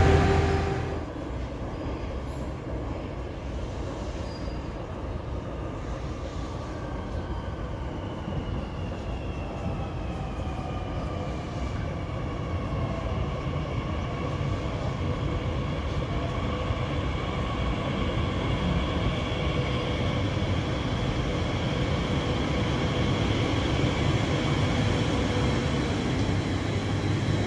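SNCF Z 50000 (Francilien) electric train pulling into an underground platform, slowly getting louder as it nears. Its motor whine falls in pitch as it brakes, then holds steady over the running rumble.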